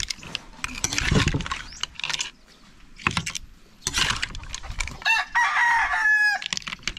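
Clattering and rustling noises, then about five seconds in a rooster crows once: a long call that drops in pitch at the end.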